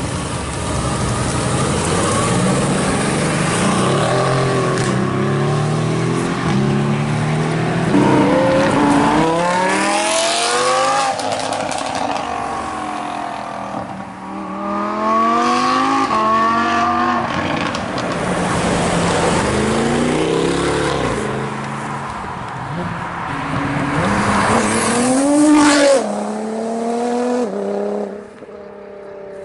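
Sports cars, among them a Mercedes-AMG GT and a Lamborghini Huracán, accelerating hard away one after another. Their engines rev up sharply and shift up through the gears several times, with loud exhaust.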